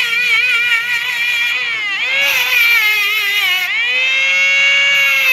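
Mini DC-motor cordless angle grinder whining at high speed, its pitch wavering as a steel needle tip is pressed against its sanding disc, with a grinding hiss in stretches. The motor pitch dips briefly about two seconds in and again near four seconds, then comes back up.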